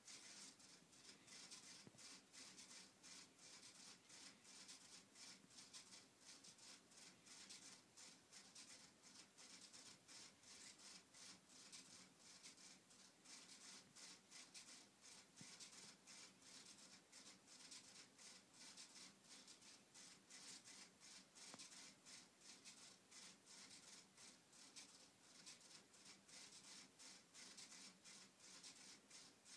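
Floppy disk drives' head stepper motors clicking rapidly and unevenly under Arduino control, starting suddenly, with a faint low hum underneath.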